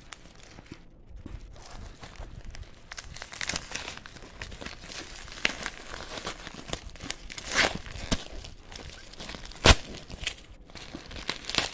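Plastic postal mailer bag crinkling and crackling as it is handled and pulled open by hand, with irregular crackles and one sharp, loud crackle near the end.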